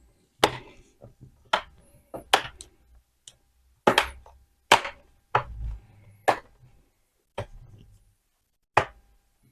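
Plastic bottom cover of a ThinkPad T450 laptop being pressed down, its clips snapping into place as a series of sharp clicks, about one a second and irregularly spaced. Each click is a latch seating, showing the cover is fitted properly along that edge.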